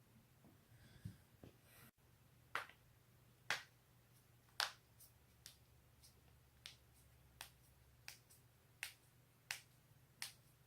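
Joints cracking: a run of about a dozen sharp, separate pops, one every half second to a second, the loudest about four and a half seconds in.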